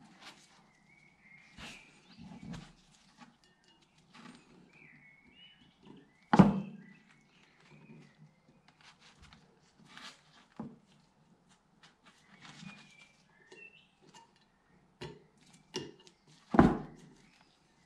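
Handling sounds of fitting a seal ring onto a BMW N52 camshaft's end journal with a pick: faint scattered clicks, scrapes and rustles of metal and gloved hands. Two sharp knocks stand out, about six seconds in and again near the end.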